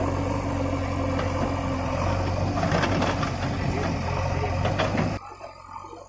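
Diesel engines of a JCB 3DX backhoe loader and a Swaraj 744 FE tractor running while the backhoe loads sand, with a few sharp knocks in the middle. The engine sound drops away abruptly about five seconds in.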